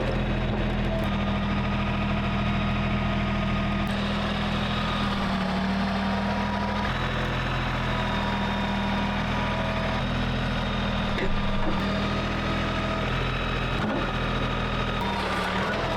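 Portable sawmill's engine running steadily while milling a log, its pitch shifting slightly a few times as the load changes.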